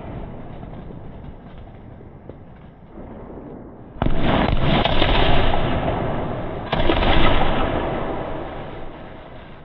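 A 60-shot skyshot fireworks cake going off: two sharp bangs, about four seconds in and again under three seconds later, each dying away slowly, with the fading tail of an earlier bang at the start.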